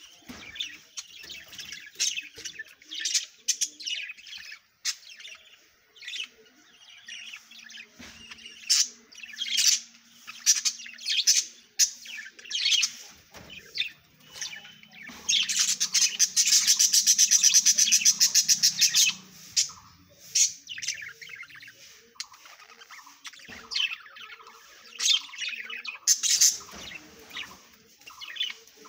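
Caged budgerigars chirping in short, sharp calls, with a loud run of rapid chattering about halfway through.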